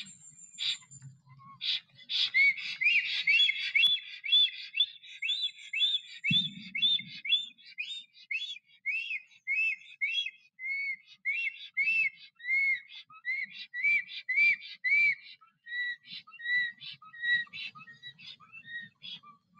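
Black stork's whistling display call ('song'): a long series of rising-and-falling whistled notes, about two a second, gradually sinking in pitch. A few sharp clicks come at the start and one low thump about six seconds in.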